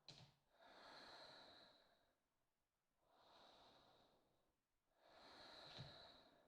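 Faint, slow breathing: three soft breaths about two seconds apart. There is a small click at the start and a soft thump near the end.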